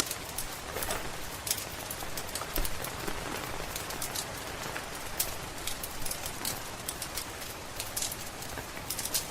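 Steady rain pattering, mixed with irregular sharp crackles and pops from a wood fire in a fireplace.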